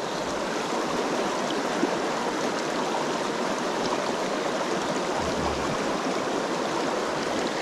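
A small mountain stream rushing over rocks in shallow riffles, a steady, even rush of water.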